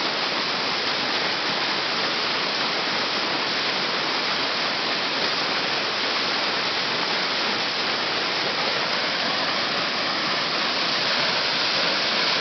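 Waterfall and fast-flowing creek: a steady, unbroken rush of falling and running water.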